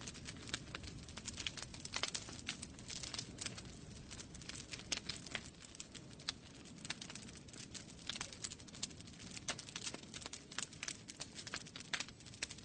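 Wood fire burning in a fireplace, crackling and popping with irregular sharp snaps over a low, steady rumble of the flames.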